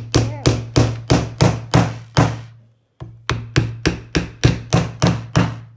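Claw hammer driving nails into a small pine block, a quick even run of strikes about three a second, each ringing briefly. There is a short pause about halfway, then the strikes resume.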